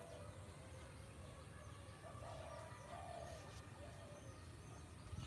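Faint dove cooing: several short, low calls over a steady low outdoor rumble.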